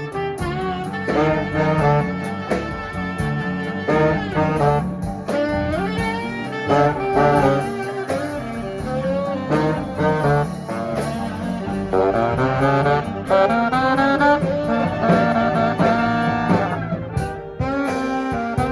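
Live swing band playing an instrumental passage, with saxophone carrying the lead melody over guitar and rhythm section.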